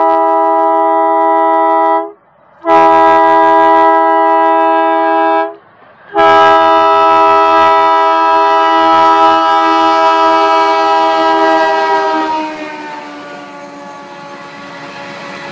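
Multi-tone horn of an Indian Railways WDG-class diesel locomotive sounding in three blasts, the last one long, with its pitch dropping as the locomotive passes. The rumble of the passenger coaches rolling by on the track follows.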